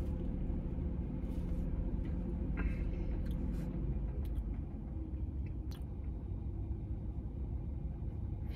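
Steady low hum of a car's interior with the engine and air conditioning running, with a few faint clicks and mouth sounds as a drink is sipped from a paper cup.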